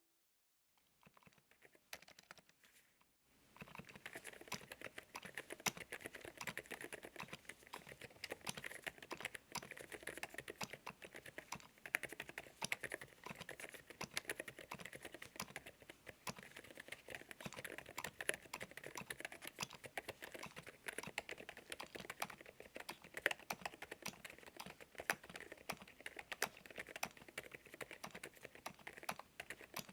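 Typing on an Epomaker RT100 mechanical keyboard: a few scattered key presses, then fast continuous typing from about three seconds in, a dense run of clacky keystrokes.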